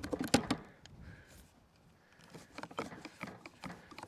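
Wooden hive-box parts knocking and clattering as they are handled and fitted together: a quick cluster of knocks at the start and another run of knocks in the second half.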